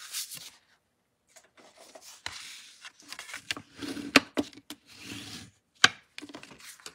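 Cardstock being handled and a bone folder rubbed along the fold of a card base to crease it, a dry scraping rub, with two sharp taps.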